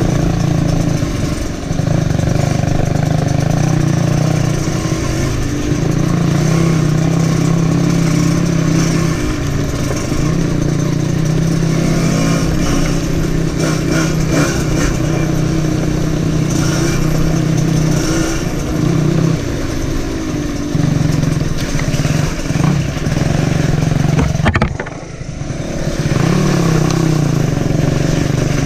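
Trail motorcycle engine running under way along a rough dirt lane, its note rising and falling with the throttle, with a brief drop in level about 25 seconds in as the throttle is backed off.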